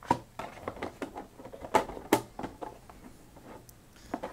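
A plastic food-storage box and its flat lid being handled and fitted together, giving a series of light clicks, taps and knocks, the loudest two just before and just after two seconds in.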